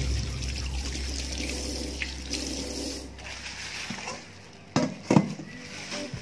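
Water running from a kitchen tap as hands are rinsed under the stream over a stainless steel sink, the flow tailing off about three seconds in. Near five seconds come two short sharp knocks, the loudest sounds here.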